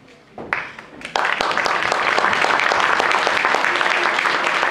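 Audience applause: a few scattered claps, then the whole audience breaks into steady clapping about a second in.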